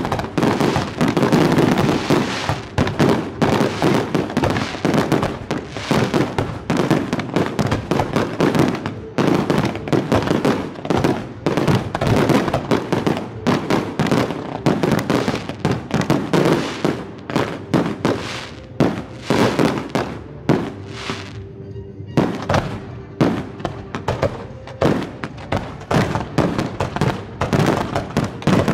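Fireworks display: a dense, continuous barrage of aerial shell bursts, many bangs overlapping with crackle, thinning briefly a little past two-thirds of the way through.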